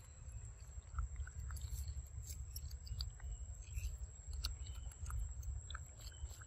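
A young macaque biting and chewing a ripe mango: scattered small wet clicks and smacks of mouth and teeth on the soft fruit, over a steady low rumble.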